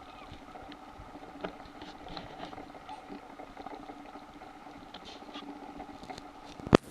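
Light, irregular clicking and pattering, typical of a toy poodle puppy's claws on a hard floor, over a steady hum. One sharp, loud click comes near the end.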